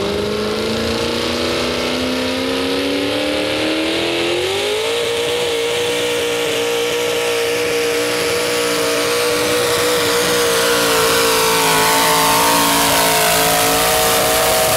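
V-8 engine of a modified pulling tractor with Allis-Chalmers sheet metal, at full throttle while pulling a weight-transfer sled. It climbs in pitch over the first five seconds or so as it winds up, then holds a steady high pitch under load.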